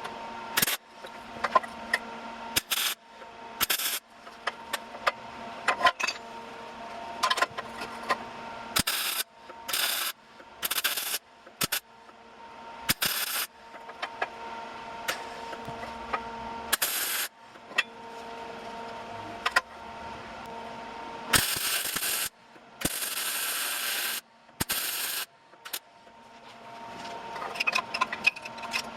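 Electric welding of a steel sleeve onto a minibike fork leg, done as a run of short stop-start welds: bursts of crackling, some brief and some a second or two long, with a steady hum underneath.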